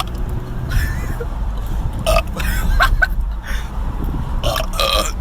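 A man belching loudly and at length, a low rough rumble that carries on, with brief voice sounds over it.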